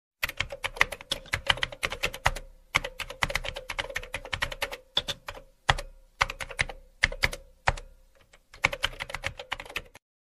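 Computer keyboard typing sound effect: rapid runs of key clicks broken by short pauses, over a faint steady hum.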